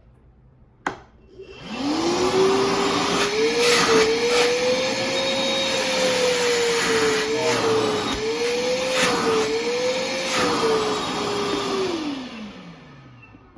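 Milwaukee M12 Fuel brushless wet/dry vacuum on its second speed: a click, then the motor whine rises and runs steadily for about ten seconds, its pitch wavering slightly, then winds down with a falling whine near the end.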